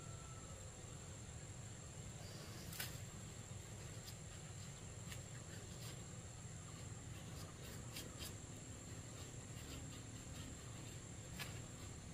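A steady high-pitched insect drone, cricket-like, in a tropical forest, over a low rumble. A few short sharp clicks or knocks are scattered through it, the loudest nearly three seconds in.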